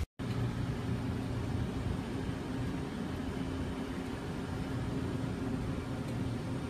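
Steady engine noise and hiss of an aircraft in flight, heard from on board, with a low hum underneath. It cuts in just after a brief moment of silence at the start.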